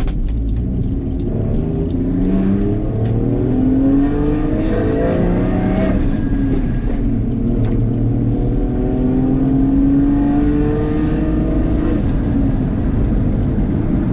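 Toyota Mark II's single-turbo 1JZ 2.5-litre inline-six and its custom exhaust, heard from inside the cabin, pulling up through the gears: the pitch climbs, falls back about six seconds in, and climbs again before easing off near the end.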